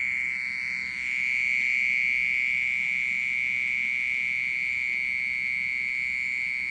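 A continuous, very steady shrill high-pitched ringing from an unseen animal hidden near the potted plants, getting a little louder about a second in. It sounds like a loud water pump, but no pump is running.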